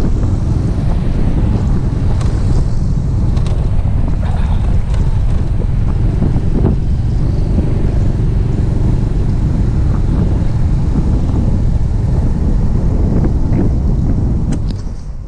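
Wind buffeting the microphone of a camera on a moving motorcycle, a loud steady rumble with the bike's road and engine noise beneath it. It fades out near the end.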